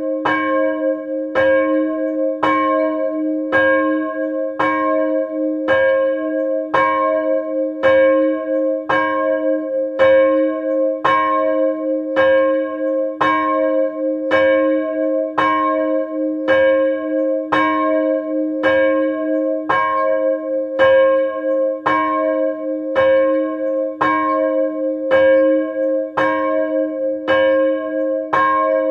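A swinging church bell, one of the 1922 KID Jesenice cast-steel bells, rung by its electric swing motor. The clapper strikes evenly, about three strokes every two seconds, each stroke ringing on over a steady hum.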